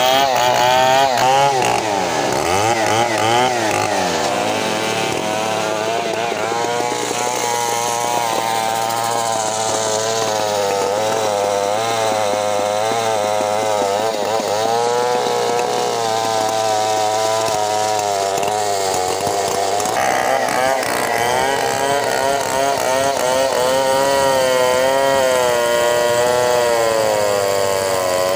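Large two-stroke chainsaw running at full throttle, ripping lengthwise through a big bengkirai hardwood log into slabs. The engine note wavers up and down as it loads and clears in the cut.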